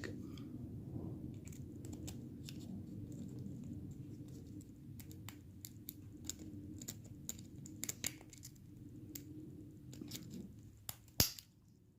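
Small metallic clicks and scratches of a diamond pick working the pins of a pin-tumbler lock held under a tension bar, with one louder click near the end as the lock gives.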